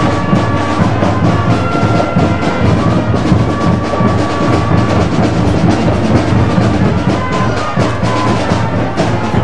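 Music with a steady drum beat and held tones.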